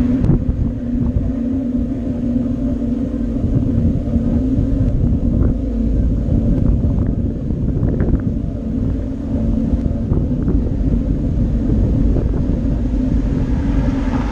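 Steady low rumble of a bicycle rolling along the road: tyre and frame vibration, with a few faint rattling clicks around the middle.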